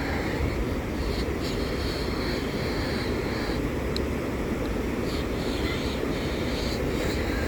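Steady rushing roar of Bow Falls, a broad waterfall, with a brief faint high chirp about four seconds in.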